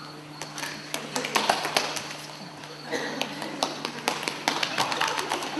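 Dancers' footsteps on a stage floor: shoes tapping, scuffing and stamping in quick irregular knocks, loudest between one and two seconds in, with faint voices in the background.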